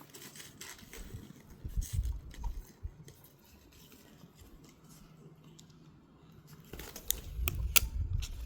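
Handling sounds from unboxing a camera and its packaging: a few soft knocks and thuds at first, then a quiet stretch, then a quick cluster of sharp clicks near the end.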